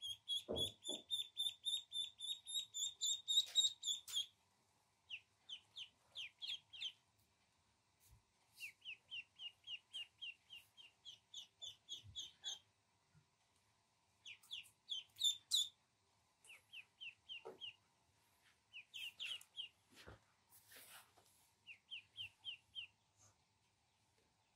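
Ducklings peeping: runs of short, high-pitched peeps, about four a second, with brief pauses between the runs.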